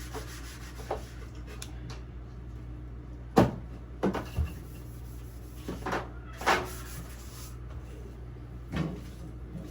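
Cloth wiping the inside of an empty refrigerator, with scattered knocks and clunks against its plastic walls and shelves; the loudest comes a little over three seconds in. A steady low hum runs underneath.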